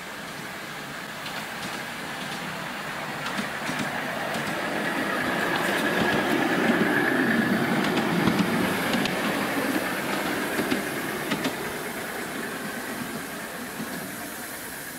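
Ride-on miniature railway locomotive and riding car running along a raised track and passing close by. Wheels click over the rail joints, getting louder to a peak about halfway through and then fading as the train moves away.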